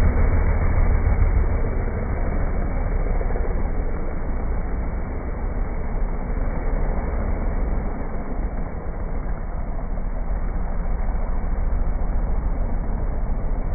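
Race pickup truck's engine at full throttle as it launches down a dirt drag strip, loudest in the first second or two, then running on more distantly as the truck pulls away.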